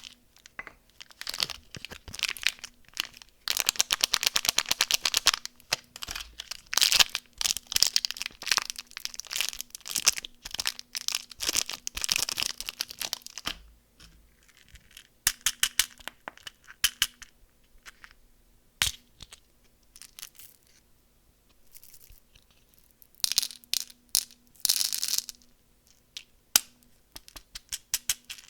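Candy wrappers being torn open and crinkled by hand: about ten seconds of dense crackling, then shorter crinkly bursts and scattered sharp clicks.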